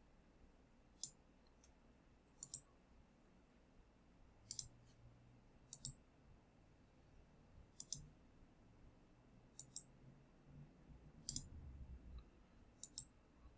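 Computer mouse button clicks, single and in quick double-click pairs, about nine scattered through, over faint room hum.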